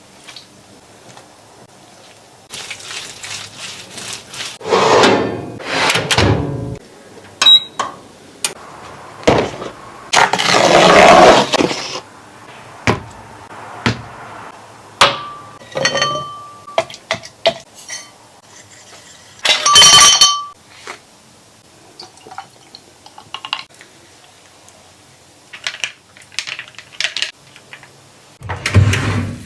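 Kitchen food-preparation sounds: dishes and utensils clinking and knocking, with a few louder noisy passages of a second or two, the loudest about ten seconds in.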